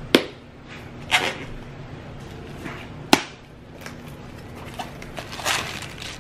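Small cardboard shipping box being cut and opened by hand: a blade slicing the packing tape, with two sharp snaps, one at the start and one about three seconds in, and a short scrape about a second in. Cardboard flaps and bubble wrap rustle near the end.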